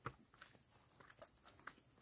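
Footsteps of hikers walking on a concrete trail path, short light steps about two a second, the first the loudest. A faint steady high-pitched tone runs underneath.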